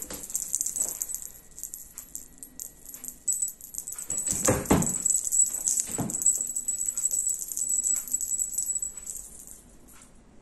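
Rapid metallic jingling, like a small bell on a feather wand cat toy shaken as it is waved, with two heavier knocks about halfway through as the cat swats at it; the jingling fades out near the end.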